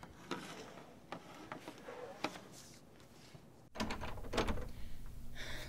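Faint scattered clicks and handling noises, then a few soft clicks of a locked wooden door being tried by hand over a light steady hiss.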